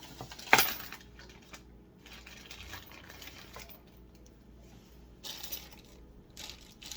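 Nylon zip ties being handled: a sharp plastic click about half a second in, then faint scattered rustling and clicking.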